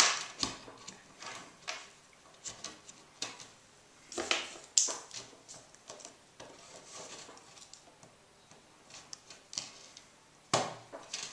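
Scattered small metallic clicks and scrapes as scissors press down the metal retaining clips on the back of a picture frame, with chicken wire clinking against the frame. The clicks come irregularly, a couple of sharper ones about four to five seconds in and again near the end.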